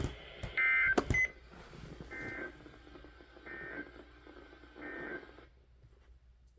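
Emergency Alert System end-of-message data bursts: four short, buzzy two-tone digital chirps about a second and a half apart over radio hiss, with a sharp click about a second in.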